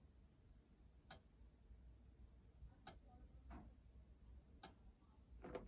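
Near silence with about five faint, sharp clicks at uneven intervals.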